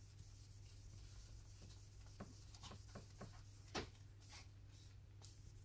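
Faint rubbing and a few light ticks as dust is wiped off a tablet's screen panel, with one slightly louder scrape near the middle, over a steady low hum.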